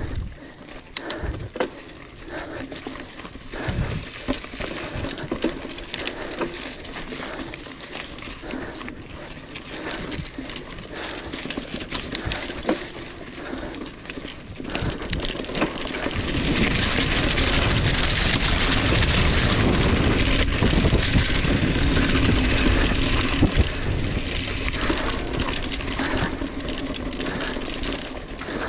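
Mountain bike being ridden along a cross-country dirt trail, rattling and knocking over the bumps. From about halfway through, a louder rushing noise comes in for around eight seconds and then eases.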